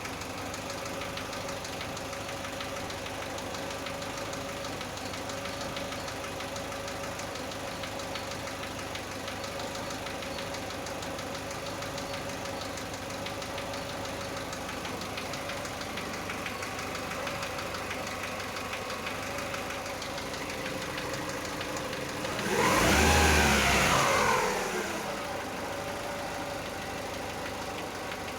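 Chevrolet Aveo engine idling cold with a knock the owner cannot identify, briefly revved about three-quarters of the way through, the pitch rising and then falling back to idle.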